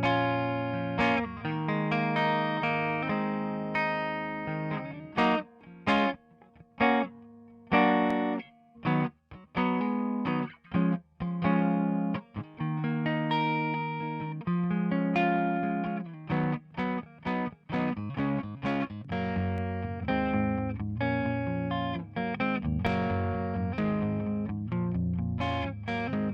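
Electric guitar playing chords through the Waves Kramer Tape emulation plugin, held chords giving way to a run of short clipped chords in the middle, then held chords again.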